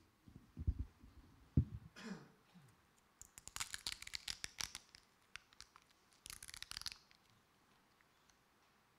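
Plastic film seals being peeled off pre-filled communion cups to reach the wafer: crackling and tearing in two stretches, after a few soft handling knocks.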